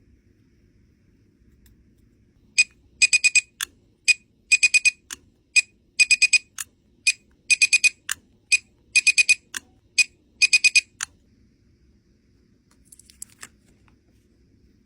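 Electronic device beeping in a repeating pattern: a single high beep, then a quick run of beeps, about every second and a half for roughly eight seconds before it stops.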